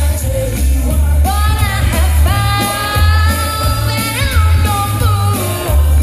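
A female vocalist singing live into a handheld microphone over backing music with a strong, pulsing bass, amplified through a stage PA. She holds one long note through the middle, then slides up into the next phrase.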